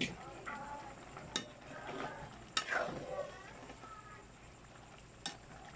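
A metal utensil stirring chicken stew in a pan on the stove, clinking sharply against the pan a few times, over the sizzle of the simmering stew.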